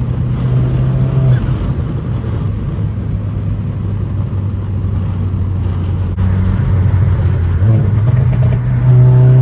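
Exhaust of a tuned VW Mk7.5 GTI's turbocharged 2.0-litre four-cylinder, run with a muffler delete and catless downpipe, droning under way. The engine note drops a little about a second in, holds, then climbs and gets louder near the end as the car accelerates.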